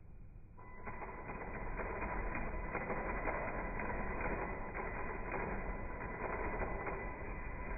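Venom Mini Giant RC monster truck's electric motor and gears running, a steady whine over a grinding gear rattle, starting just under a second in.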